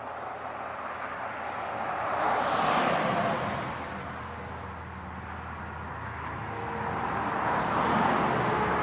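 Two heavy trucks passing at highway speed one after the other, each one's tyre and engine noise swelling to a peak and fading, the first about three seconds in and the second near the end.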